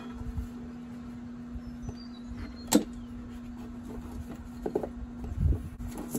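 Hand work on the Gator's stripped-down drivetrain: a sharp knock about three seconds in and a dull thump near the end, over a steady hum.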